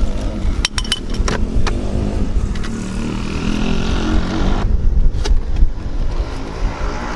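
Small-capacity pit bike engines running, one rising in pitch as it revs up around the middle, then dropping away. A few sharp clicks in the first two seconds.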